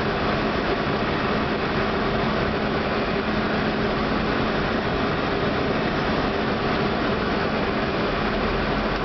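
Steady cockpit noise of an Airbus A319 on final approach: an even rush of airflow and engine noise with a faint steady hum in it.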